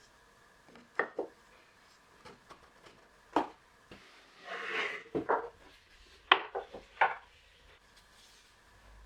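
Wooden shelf parts being handled and fitted together: a series of sharp wooden knocks and clacks, with a short scraping rub between about four and a half and five seconds in.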